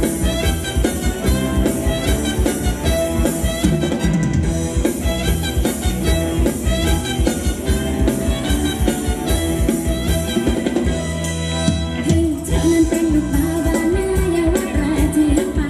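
Live Thai ramwong dance band playing with a drum kit keeping a steady, fast beat. The bass and kick drop out for about a second near the middle, then a wavering lead melody comes in over the band.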